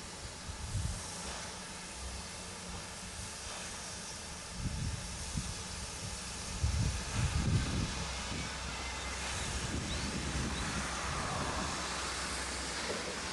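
Steam locomotive giving off a steady hiss of steam, with irregular low rumbling, strongest around the middle.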